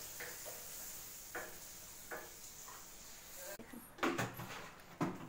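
Butter sizzling in a frying pan as pav buns toast, with a few soft taps; the sizzle cuts off about three and a half seconds in, followed by two knocks about a second apart.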